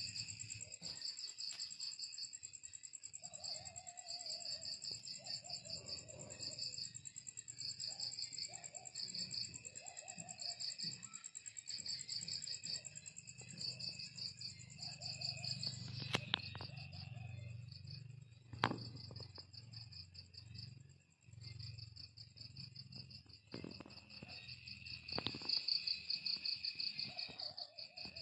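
Night insect chorus: crickets chirping in repeated pulsed bursts over steady high-pitched insect trills, with a few faint lower calls. Two sharp clicks come in the second half.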